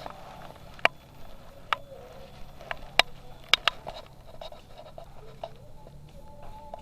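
Airsoft guns firing single shots in sharp, irregular cracks, about five in all, two of them in quick succession a little past the middle.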